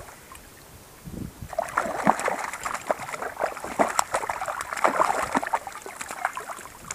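A hooked Lahontan cutthroat trout thrashing at the water's surface: a run of irregular splashes and spatters starting about a second in and dying away near the end.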